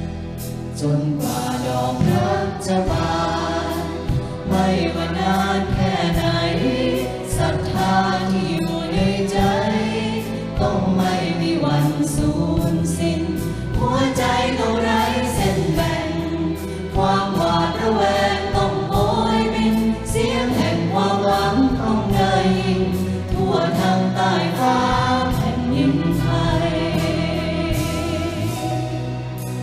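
Mixed choir singing a slow anthem in unison with a symphony orchestra accompanying, the sound tapering off near the end.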